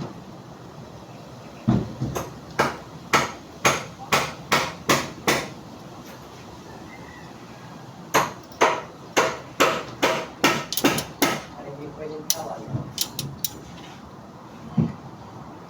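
Hammer blows in two runs of about eight or nine steady strikes each, roughly two to three a second, with a pause between them and a few lighter knocks afterwards.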